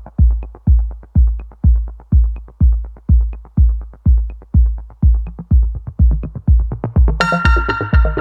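Electronic dance music: a steady kick drum about twice a second with light hi-hat ticks, then a cymbal crash and synth chords come in about seven seconds in.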